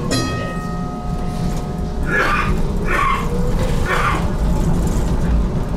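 Low rumble of a GTL8 tram running, with a ringing chime at the start that fades over about two seconds, then three short animal calls about a second apart.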